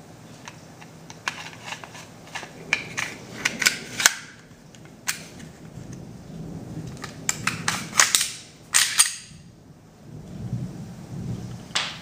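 Glock pistol being reassembled: a run of sharp metal-and-polymer clicks and clacks as the slide goes back onto the frame and is worked. A cluster of clicks comes in the first few seconds, and the loudest clacks are bunched about eight to nine seconds in.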